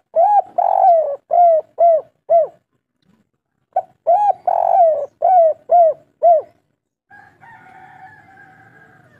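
Spotted dove cooing: two phrases of the three-ending 'kuk 3' type, about four seconds apart. Each phrase is a short note, then a longer wavering coo, then three short arched coos.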